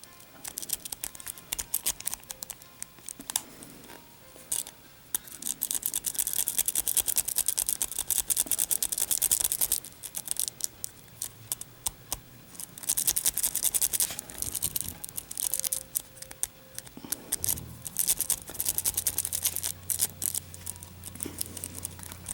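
Steel wave rake being scrubbed in and out of the keyway of a laminated steel padlock against a tension wrench: rapid metallic scratching and clicking of the pin stacks, in bouts with short pauses between.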